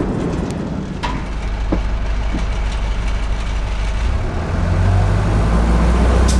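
Bus engine running with a steady low rumble that grows louder about two thirds of the way through, with a few light knocks early on.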